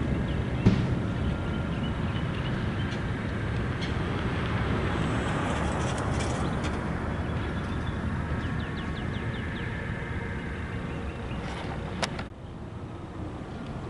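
Diesel switching locomotive running with a steady low rumble, with faint bird chirps above it. A sharp click comes about twelve seconds in, and the rumble drops off right after it.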